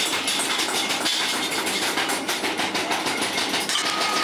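Steady machine noise in a metal workshop with a fast, even rattle. A thin steady whine comes in near the end.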